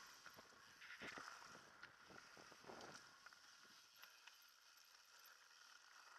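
Faint rattling and knocking of a mountain bike rolling fast down a dirt trail, with a hiss of tyre and wind noise, picked up by a helmet camera. It is roughest about a second in and again near three seconds, then eases off.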